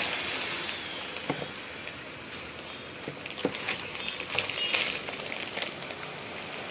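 Handling noise: a 10-inch subwoofer driver being picked up and turned over by hand, with scattered light clicks, knocks and rustling.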